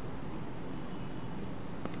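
Steady background noise hiss with no clear birdsong, and a single faint click near the end.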